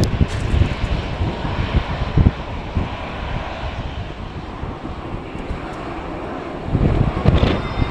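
Airliner engine noise, a steady hiss that eases off a little midway, with gusts of strong wind buffeting the microphone in low, irregular thumps.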